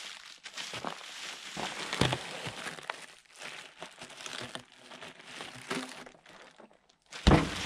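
Clear plastic wrapping crinkling as it is pulled off a roll of Blueskin peel-and-stick membrane, with a sudden heavy thump near the end.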